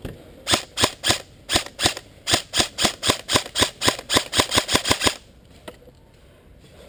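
Airsoft gun firing a rapid string of about twenty shots over four and a half seconds, with two short pauses, each shot a sharp crack.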